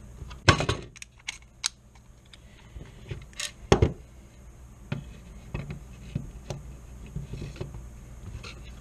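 Irregular clicks and knocks of the Ruger PC Carbine's polymer and metal parts being handled and set down on a wooden workbench, the loudest knock a little before four seconds in.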